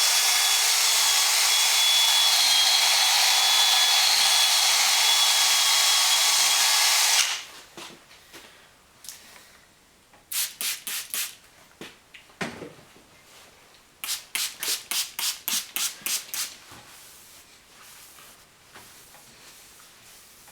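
Handheld power tool running steadily with a faint whine while sanding a plastic headlight lens at 1000 grit; it stops abruptly about seven seconds in. After it come scattered short hissing strokes, including a quick run of about four a second.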